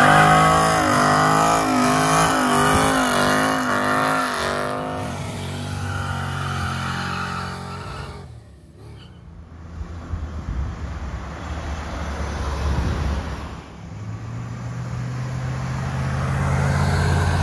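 Car engines at a car show as cars drive out: one engine runs loud with its pitch rising and falling for a few seconds, then fades away. About halfway through, a second car's engine grows steadily louder as it comes closer.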